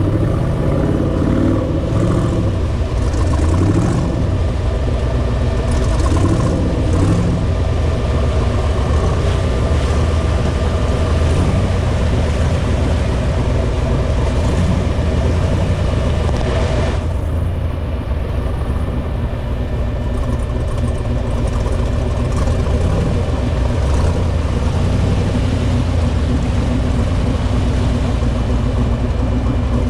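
Off-road 4x4 engine running as it drives a trail. Its pitch rises and falls over the first several seconds, then holds steadier.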